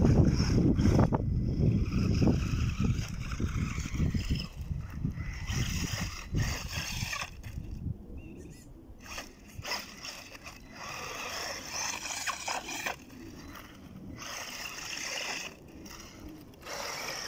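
Wltoys 12428 RC truck's electric motor and gearbox whining in repeated spurts as the throttle is worked on and off, the pitch varying with speed. A low rumble is loudest at the start and fades after a few seconds.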